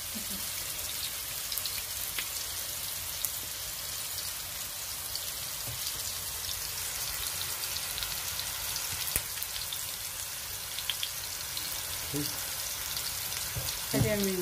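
Food frying in hot oil: a steady crackling sizzle with scattered small pops.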